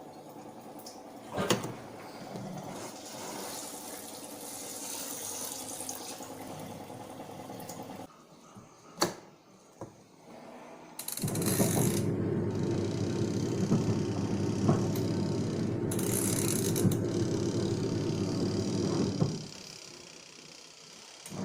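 Onida 6.5 kg washing machine running a wash with shoes in it: a motor churning with water moving. It runs moderately at first, goes quiet with a few clicks around 8 seconds in, then starts again louder a few seconds later and cuts off near the end.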